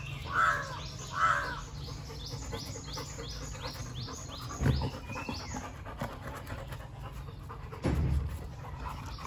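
Excited dogs during treat training: three short whines in the first second or so, with a bird singing a fast series of falling high notes behind. Two dull thumps come later as the dogs jostle.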